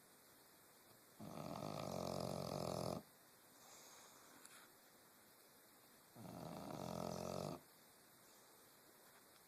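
Bulldog snoring in its sleep: two long snores, one about a second in and one about six seconds in, with a faint breath between them.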